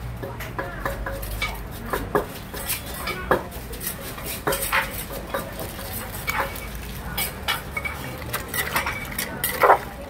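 Scattered clinks and knocks of a metal ladle and spoon against a large clay mortar as ingredients are dropped in and stirred, with the loudest knock just before the end.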